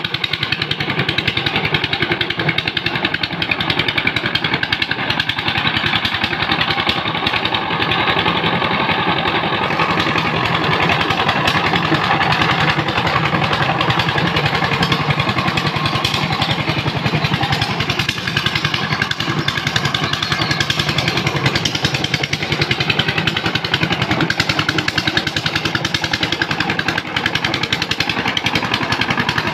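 Single-cylinder diesel engine of a two-wheel walking tractor (power tiller) running steadily under load as the tractor pulls through deep mud, with a fast, even chugging.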